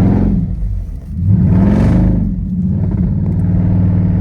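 Car engine revving hard twice, its pitch rising and falling back each time, then running on at a steady higher speed.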